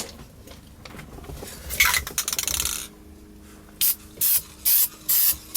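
Aerosol can of Rust-Oleum Hammered spray paint spraying in short bursts, about five quick hisses over the last two seconds. There is a brief rustling noise about two seconds in.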